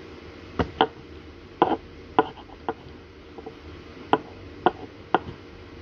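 About eight sharp, short taps or knocks, irregularly spaced, each one brief and clicky.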